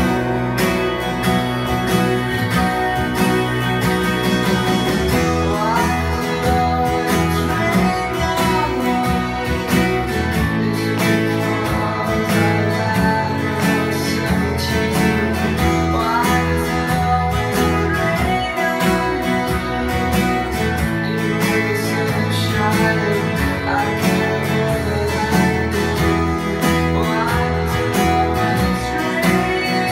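Steel-string acoustic guitar strummed in a steady rhythm, playing a chord progression, with a singing voice over it at times.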